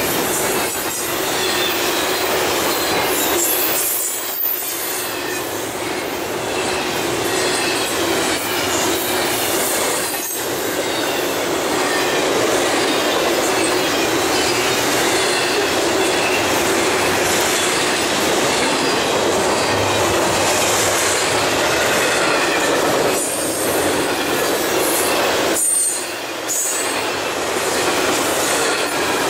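Double-stack intermodal well cars rolling past at close range: continuous steel-wheel-on-rail noise with a high-pitched wheel squeal, dipping briefly a few times.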